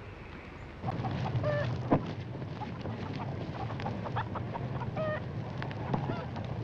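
Chickens clucking, with short sharp calls about a second and a half in and again about five seconds in, over a low steady rumble that starts about a second in.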